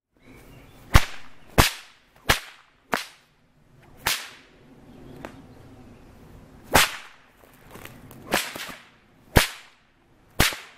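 A whip cracking about nine times in irregular succession, each a sharp crack, some with a short swish trailing after. One of the late cracks strikes the drink can, which bursts and sprays its contents under the pressure built up inside.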